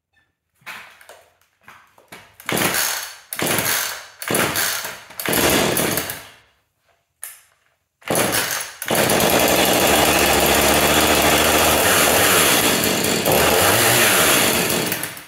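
Husqvarna 440 two-stroke chainsaw pull-started on a freshly replaced starter cord: a series of short bursts as the cord is yanked, then the engine catches about nine seconds in and runs steadily for about six seconds before cutting off near the end.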